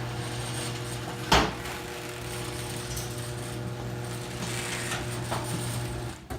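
Craftsman 1/2 hp chain-drive garage door opener running as it drives the door, a steady, kind of loud motor hum. A sharp knock about a second in, and the motor stops about six seconds in.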